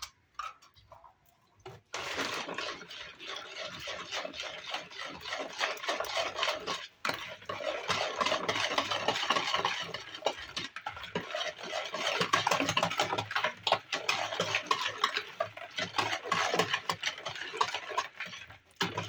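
Cake batter of blended dates, sugar, oil and eggs being whisked in a mixing bowl: a rapid, continuous clatter and scrape of the whisk against the bowl that starts about two seconds in and stops just before the end.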